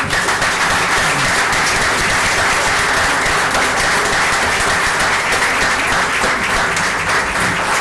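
Audience and panel applauding after a talk ends: many hands clapping steadily together.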